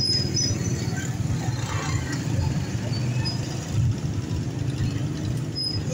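Honda CG 125's single-cylinder four-stroke engine running at low speed, a steady low rumble, with motorbikes and vans of the street traffic around it. A few faint short high tones sound over it.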